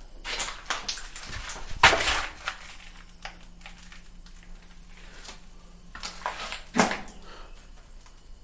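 Crunching, scuffing footsteps on rough ground in two bursts, the louder about two seconds in and another near seven seconds, with a faint steady low hum between them.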